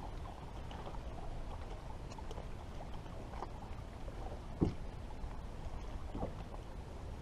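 Water lapping against a bass boat's hull, with a steady low rumble, scattered small ticks and one dull knock a little past halfway.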